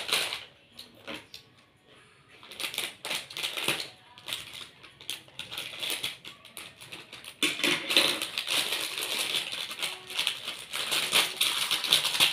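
Plastic snack packet crinkling as it is handled and torn open by hand: irregular crackling rustles, sparse at first and denser and louder from about eight seconds in.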